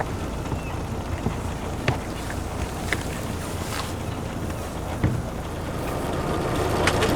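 A boat underway: a steady low rumble of the motor and water, with wind on the microphone and a few short knocks.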